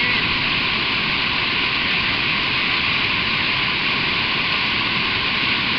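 Water pouring over a waterfall about three metres high: a steady rushing noise that holds at one level throughout.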